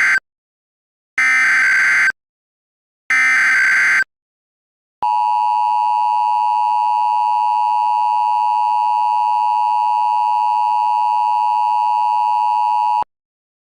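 Emergency Alert System SAME header: the end of one buzzy digital data burst and two more, each about a second long and a second apart. Then comes the steady two-tone EAS attention signal, held for about eight seconds before it cuts off sharply.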